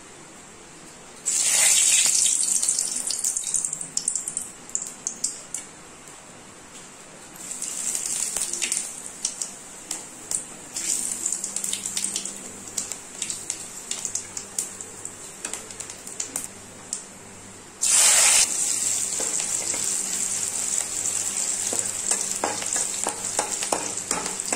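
Tempering of whole spices and chopped onion hitting hot oil in a pan: a sudden sizzle about a second in that slowly dies down, a second rise a few seconds later, and a loud fresh burst of sizzling near the end that keeps going. Short clicks and scrapes of a spatula stirring run through it.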